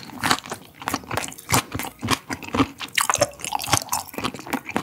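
A person chewing a mouthful of raw shrimp and sea urchin roe wrapped in gamtae seaweed, close to the microphone: a fast, uneven run of sharp mouth clicks and smacks.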